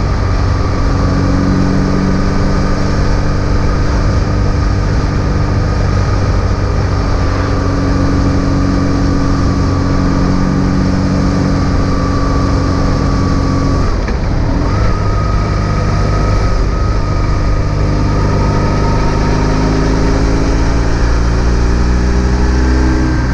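BMW R1150 GS's flat-twin boxer engine running at a steady cruise under wind and road noise. About two-thirds of the way through, the engine note breaks off briefly, then its pitch climbs steadily as the bike accelerates toward the end.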